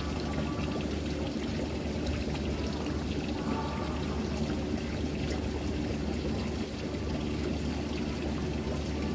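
Water pouring steadily into a pond, a continuous splashing flow with a low steady hum underneath.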